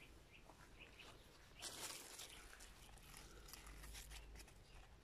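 Near silence with faint rustling of cucumber leaves and vines as a hand moves through them, and one slightly louder brief rustle a little under two seconds in.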